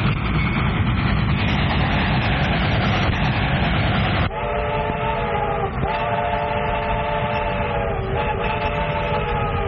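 Train running with a heavy rumble. About four seconds in, its whistle sounds three long blasts, a chord of several steady tones that sags in pitch as each blast cuts off.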